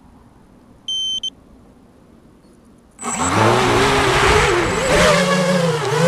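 Two electronic beeps, one longer and one short, from the aircraft's electronics arming, then about three seconds in the electric motor and propeller of a Minion FPV flying wing spin up to full throttle with a loud whine and rush of air, the pitch wavering as the plane is launched.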